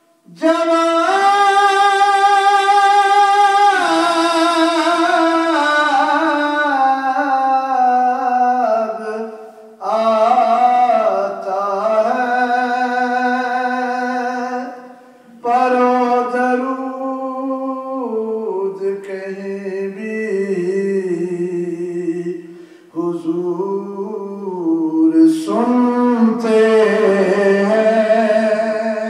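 A man singing a naat, a devotional poem in praise of the Prophet, solo and unaccompanied. He sings in long held, sliding melodic phrases broken by short pauses for breath.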